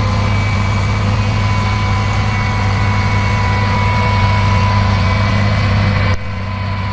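Heavy engine of a sugarcane grab loader running steadily, a deep hum with a steady high whine over it. The sound becomes a little quieter near the end.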